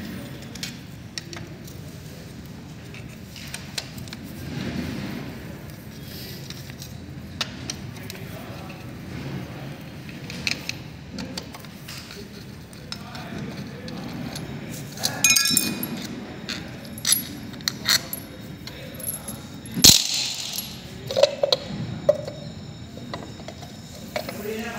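Metal clinks and rattles of a socket wrench and loose bolts as the magneto cover of a Bajaj Discover 100cc motorcycle engine is unbolted. There is a short run of ringing metallic clinks about 15 seconds in, a sharp click near 20 seconds, and a few more clinks after it, over a low steady background hum.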